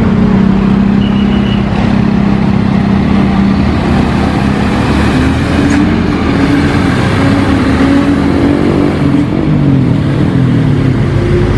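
Diesel engine of a light truck carrying an excavator on its carrier bed, pulling uphill under load past close by. The engine note holds steady at first, then rises and shifts in pitch from about halfway through as the revs climb.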